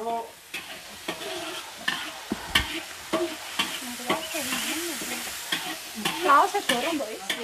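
Metal spatula scraping and knocking against a large aluminium wok, stirring spice paste that is frying and sizzling. The knocks come irregularly over a steady sizzle.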